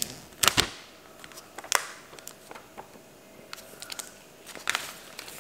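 Clear plastic film being torn and pulled off a sealed iPhone 11 Pro box, crinkling in short sharp rustles, with the loudest ones about half a second in, near two seconds and near the end.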